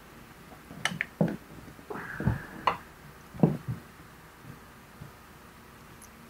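Battery charger alligator clamps being handled and clipped onto a small motorcycle battery's terminals: a series of short metallic clicks and knocks over the first four seconds, with a brief high tone about two seconds in.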